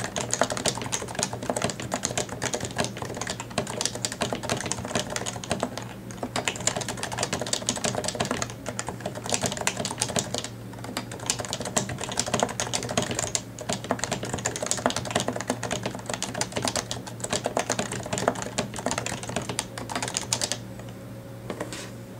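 Fast touch-typing on a Happy Hacking Keyboard Pro 2 with Topre capacitive key switches: a rapid, dense run of key clicks during a typing test at about 99 words per minute. The typing stops about twenty seconds in, leaving only a few scattered keystrokes near the end.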